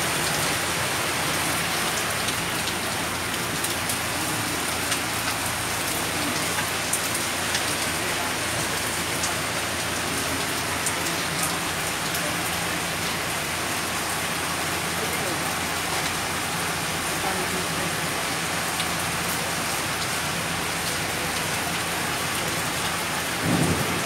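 Heavy rain falling steadily on wet concrete, with scattered sharp drip ticks.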